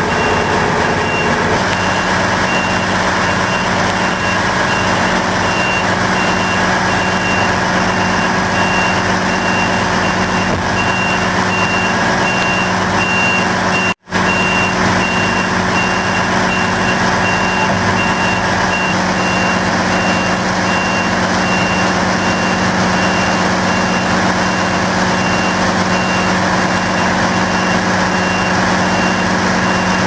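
Heavy earthmoving machine's diesel engine running steadily under a reversing alarm beeping at an even pace. The sound cuts out for an instant about halfway through.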